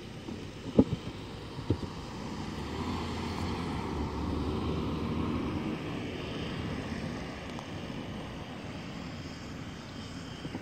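Engine rumble that swells over a few seconds and then eases off, after two sharp knocks about a second in.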